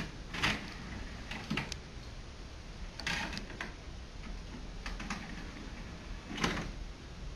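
A handful of sharp clicks and soft knocks, spaced irregularly a second or more apart: hands handling a DVD and a disc player.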